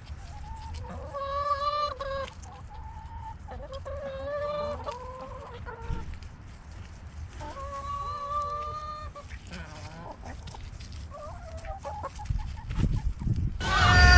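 Chickens calling: four drawn-out, pitched squawks spaced a few seconds apart, with a much louder burst of sound starting just before the end.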